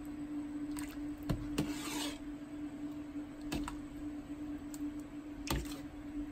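A metal ladle stirring in a stainless steel pot of boiling meatballs, knocking and scraping against the pot several times as separate clinks, with a brief scrape about two seconds in. A steady low hum runs underneath.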